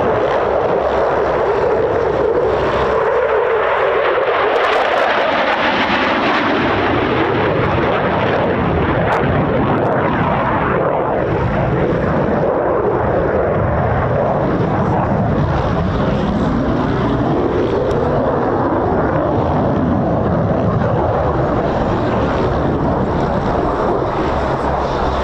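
Belgian Air Force F-16 Fighting Falcon's Pratt & Whitney F100 turbofan, a loud continuous jet roar as the fighter manoeuvres through its display. The pitch falls in the first few seconds and rises again later as the jet turns and passes.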